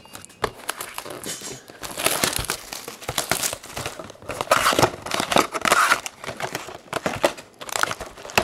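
Plastic and foil packaging of trading-card packs crinkling and tearing as it is opened by hand, in irregular rustling bursts.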